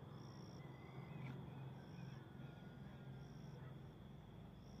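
Faint insects chirping: a steady high thin hum, with short high two-note chirps, a higher note then a lower one, repeating about every second and a half.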